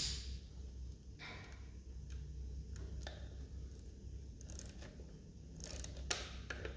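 Small ratcheting hand wrench tightening a hose clamp screw on a MerCruiser Alpha One sterndrive's exhaust bellows: faint scrapes of the tool, and a few quick clicks near the end, with a sharp click at the very start.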